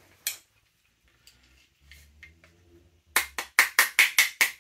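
A quick run of sharp taps, about four a second, starting about three seconds in: a pin being knocked out of an airsoft AK rifle's gearbox. A single click comes shortly after the start, with faint handling noise before the tapping.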